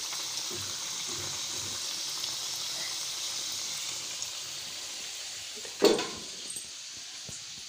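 Gujiya deep-frying in hot oil in a kadhai: a steady sizzle that fades toward the end. A loud knock comes about six seconds in.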